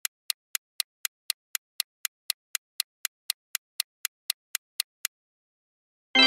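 Quiz countdown ticking sound effect: sharp, evenly spaced ticks, about four a second, for about five seconds, then stopping. Near the end a bright chime rings out and fades as the answer is revealed.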